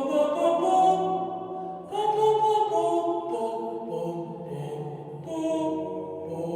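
Several voices singing long held notes together in chords, moving to a new chord a few times.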